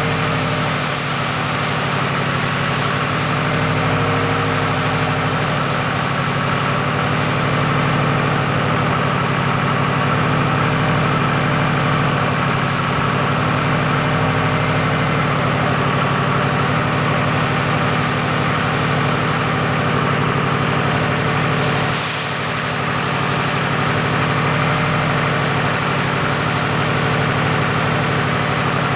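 Freshly built Subaru EJ257 flat-four engine idling steadily on its first run after the rebuild.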